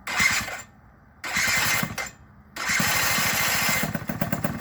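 Small motorbike engine with a newly fitted exhaust pipe being started: two short bursts that die away, then a third about two and a half seconds in that catches and keeps running. Near the end it settles into a steady, rapid exhaust pulse.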